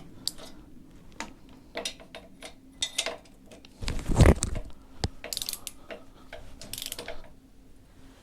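Hand socket ratchet clicking in short runs as cylinder head nuts are run down, with a few metallic clinks; the longest, loudest run comes about four seconds in.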